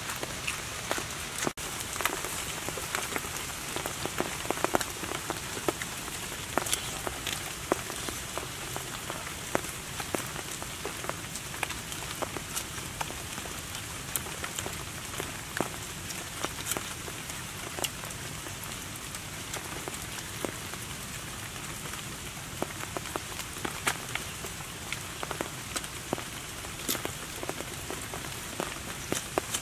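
Steady rain falling on forest leaves and ground: an even hiss dotted with many sharp drop ticks.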